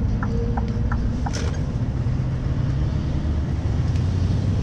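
Scania V8 lorry heard from inside the cab: the engine and road noise drone steadily, with the last few ticks of the indicator relay at the start, and the engine note grows louder about halfway through as the truck accelerates.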